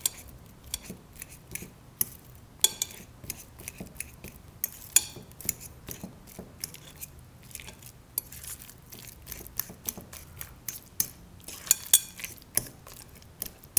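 A metal fork mashing ripe bananas in a glass bowl: irregular clinks and scrapes of the fork against the glass.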